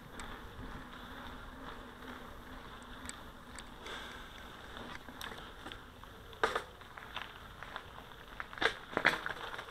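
Mountain bike rolling on a paved path: a steady hiss of tyre noise with a faint hum, then a few sharp knocks and rattles in the last few seconds as the bike goes over bumps.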